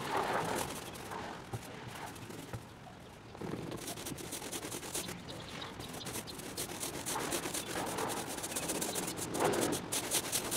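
Small roller rolled back and forth over a wet coat of resin on a boat's deck: a rubbing sound with a fine, quick crackle, busier after the first few seconds.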